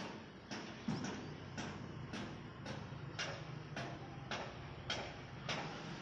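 Steady rhythmic ticking, about two sharp ticks a second, over a low hum.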